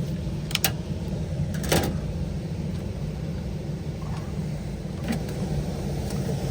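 Steady low hum of a running HVAC unit, with a few sharp metallic clicks and a knock as the screws and metal access plate are worked loose.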